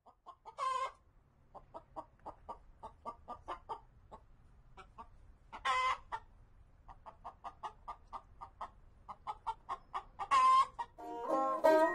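Chickens clucking: a run of short, soft clucks with three louder calls, about a second in, near six seconds and near ten and a half seconds. Plucked banjo and guitar music starts near the end.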